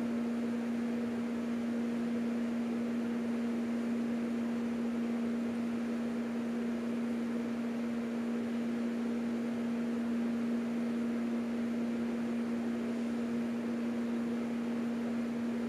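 Electric sewing machine running steadily as a seam is stitched, an even hum with no change in speed.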